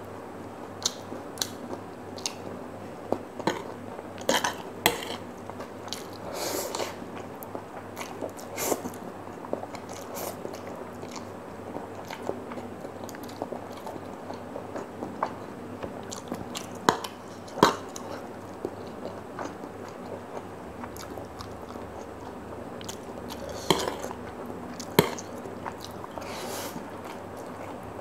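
Close-up eating sounds: a person chewing noodles with wet mouth noises and irregular sharp lip smacks and clicks.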